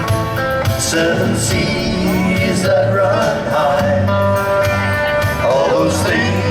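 A small band playing a slow country-folk song live, with a singer's voice over steady held instrument chords and a plodding bass line.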